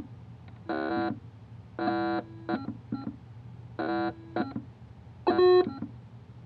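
White's V3i metal detector sounding short, stop-start electronic tones, about four longer tones with a few short blips between them, over a faint steady low hum. The detector is falsing on electrical interference while its transmit-frequency offset is stepped to find the quietest setting.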